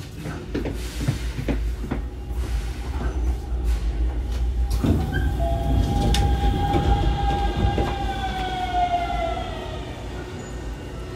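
Hankyu 7000 series commuter train running, with a low rumble and scattered clicks from the wheels over the rails. About five seconds in, a whine comes in and slowly falls in pitch, fading near the end.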